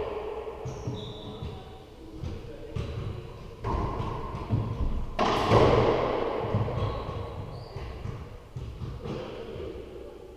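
Racquetball rally in an enclosed court: the hollow rubber ball cracks off racquets and the walls, and each hit rings on in the court's echo. The loudest hits come about three and a half and five seconds in, with quieter knocks in between.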